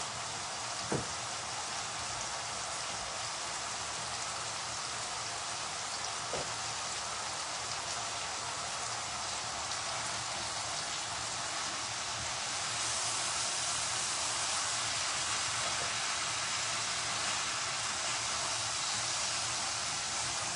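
Food frying in oil in a pan, a steady sizzling hiss that grows louder about two-thirds of the way through. There are light knocks about a second in and again around six seconds.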